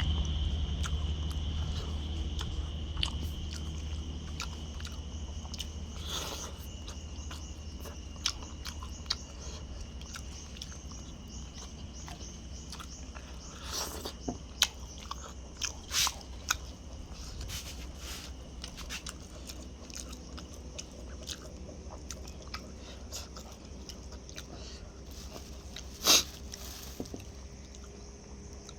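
A person eating chicken close to the microphone: chewing and biting, with scattered soft clicks and a few sharper crunches, the loudest about three quarters of the way through, over a low steady hum.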